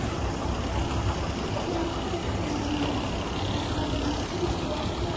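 Steady low rumble of shopping-mall ambience, with faint pitched sounds mixed in.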